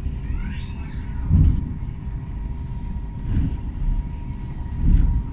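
Onboard running noise of a VR Sm4 electric commuter train at speed: a steady low rumble with a faint constant whine, and three heavier low surges about two seconds apart.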